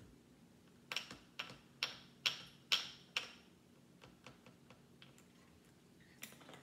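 A person drinking from a plastic bottle: a run of about six sharp clicky gulps, roughly two a second, then quiet.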